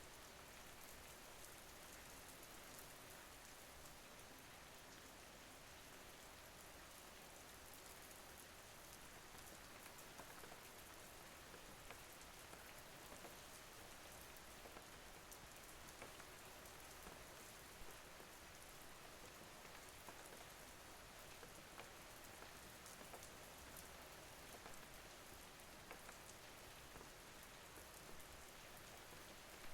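Faint, steady rain falling, an even hiss with scattered drop ticks.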